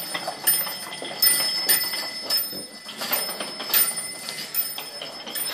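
Plastic wheels of a toddler's ride-on toy dump truck and the pull-along toys towed behind it rolling and rattling over a hardwood floor, with irregular clacks about every half second.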